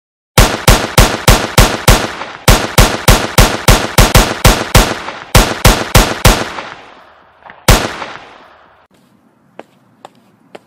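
Gunfire sound effects for toy blasters: rapid shots about three or four a second in three quick volleys, then one last single shot near eight seconds in. A few faint clicks follow.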